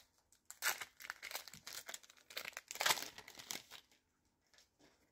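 Foil wrapper of a Pokémon card booster pack crinkling and tearing as it is opened, in irregular crackles that stop about four seconds in.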